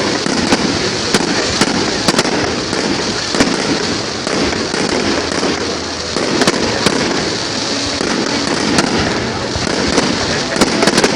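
Fireworks going off continuously: a dense, unbroken crackle and rumble with sharp bangs at irregular intervals, several in quick succession near the end.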